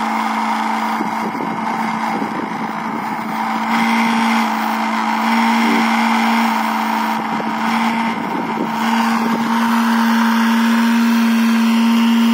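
Small 12 V brushed DC motor running steadily as it belt-drives the magnet rotor of a homemade generator: a steady hum with a high whine, getting a little louder about four seconds in and again near the end.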